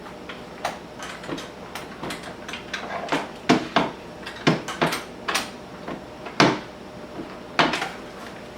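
Makita XPS01PTJ plunge track saw being handled: a dozen or so irregular, sharp clicks and clacks as its latch and parts are worked, the loudest knock about six and a half seconds in.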